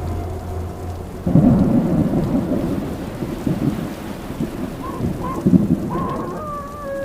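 Thunderstorm sound effect: a sudden clap of thunder about a second in, rumbling on in surges with rain. Tones of music come in near the end.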